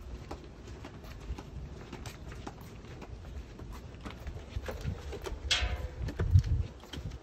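Footsteps of shoes walking on a concrete sidewalk, a steady run of low thuds with small clicks of handling. About five and a half seconds in there is a brief high squeak, and just after it a heavier thud.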